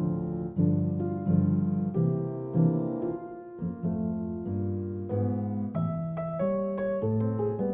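Background piano music: a melody of separate notes over low sustained chords.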